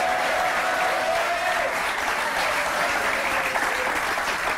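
Studio audience clapping steadily.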